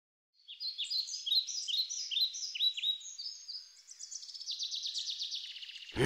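Songbird chirping: after about half a second of silence, a string of short, high, quickly falling chirps, about two or three a second, then a fast trill over the last two seconds.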